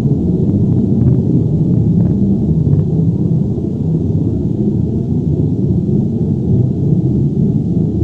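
Earthquake or avalanche rumble sound effect: a loud, continuous deep rumble that holds steady, with a few faint crackles above it.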